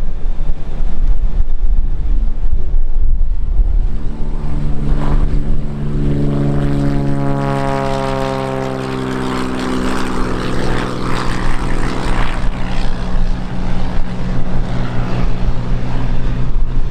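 Cessna T207A Turbo Skywagon's turbocharged six-cylinder engine and propeller at takeoff power as the plane climbs out past. The drone grows louder and drops in pitch as it goes by about halfway through, over wind buffeting the microphone.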